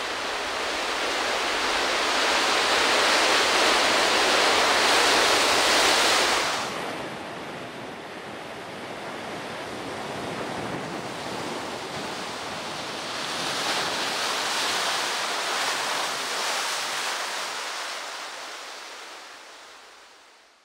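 Ocean surf: waves breaking and washing in as a steady rush. It is loudest for the first six seconds, drops, swells again about two-thirds of the way in, then fades out near the end.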